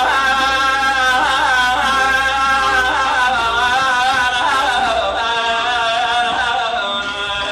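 Middle Eastern background music: a wavering melodic line over steady held tones.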